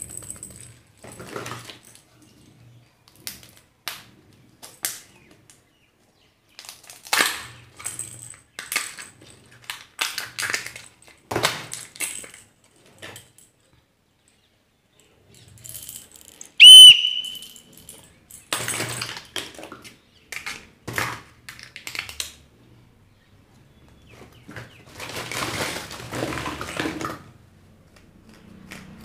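Surprise eggs and candies being unwrapped and handled: crinkling wrappers and clicking, snapping plastic in scattered short bursts, with a longer crinkle near the end. About halfway through comes a single short, very loud high whistle, the loudest sound.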